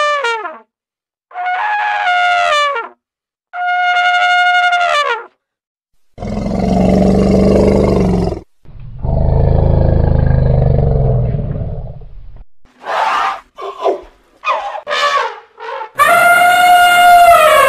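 Elephant trumpeting: three short high trumpet blasts, each dropping in pitch at its end, then two long low, rough calls, a run of short squealing trumpets, and a long loud trumpet near the end.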